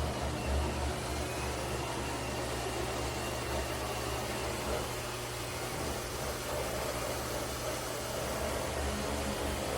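eufy X10 Pro Omni robot vacuum running: a steady whirring hiss with a low hum underneath.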